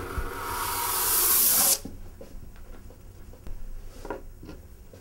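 Aerosol spray hissing onto the painting for about two seconds, growing louder, then cutting off sharply. A few faint taps and rubs follow.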